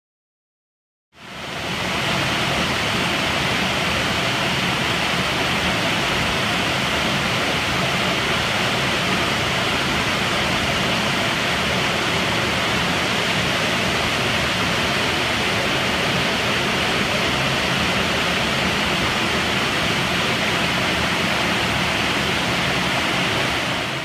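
Waterfall pouring over a rock overhang into a pool: a steady, loud rush of falling water that fades in about a second in.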